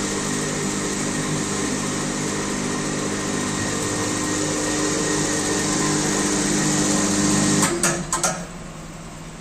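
Ceiling fan production machine running steadily with a motor whine and hiss, then shutting off abruptly near the end, followed by a few sharp mechanical clicks.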